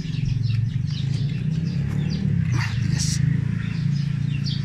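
A small engine running steadily at a low idle, a constant low hum. A few short high chirps or clinks come over it about two and a half to three seconds in.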